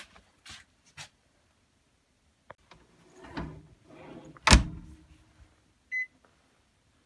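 Microwave oven being loaded: a few light clicks and a rustle as the plate goes in, then the door shutting with one loud knock about four and a half seconds in. Near the end a single short beep from the touch control panel as the microwave power button is pressed.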